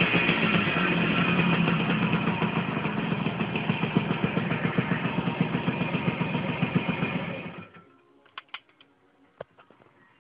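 DKW 159's small two-stroke engine idling with an uneven beat that slows and loosens, then cuts out about three-quarters of the way through. A few faint clicks follow.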